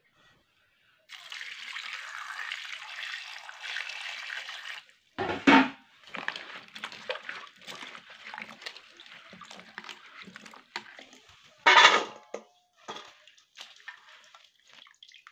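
Water poured into an iron kadhai of cut potatoes and drumstick pieces for a few seconds, then hands sloshing and rubbing the pieces in the water to wash them. Two louder knocks, about five seconds in and again near twelve seconds.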